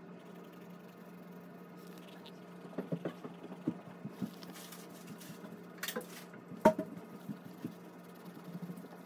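Coloured pencil stroking and tapping on a paper journal page resting on a wooden table: a scatter of short scratchy clicks and knocks, one sharper knock about two-thirds of the way through, over a steady low hum.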